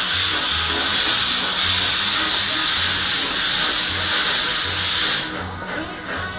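Steam locomotive letting off a loud, steady hiss of steam that cuts off suddenly about five seconds in.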